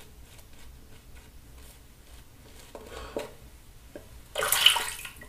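A few faint clicks of handling, then about four and a half seconds in a short rush of water lasting about half a second, as the shaving brush is wetted to work up more lather.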